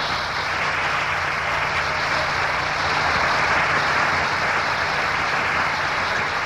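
A crowd applauding steadily, swelling slightly in the middle and easing off near the end, right after a shouted rallying call at the close of a speech.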